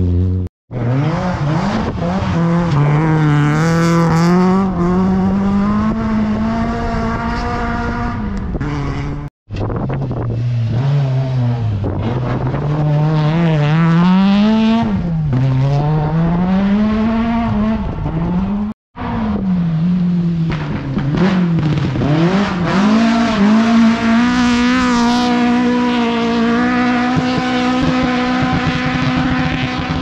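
Rally cars driven hard, heard in three separate clips cut one after another. In each, the engine revs up and drops back again and again as the driver shifts and lifts, and it holds high revs near the end.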